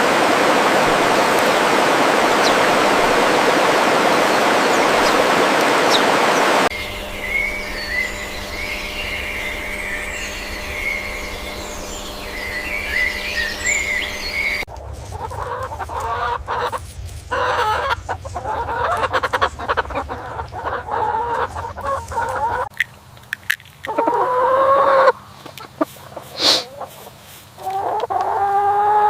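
A steady rushing noise cuts off about seven seconds in, giving way to high chirping from small birds; after about fifteen seconds, chickens cluck repeatedly, with a few drawn-out calls near the end.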